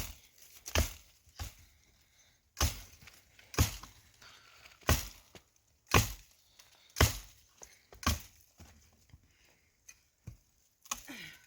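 Firewood being chopped with an axe, sharp strikes about once a second that grow fainter near the end.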